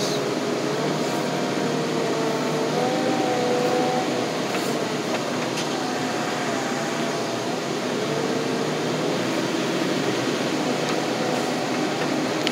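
A loader's engine and hydraulics running steadily, heard from inside the cab, with a whining tone that wavers up and down in pitch.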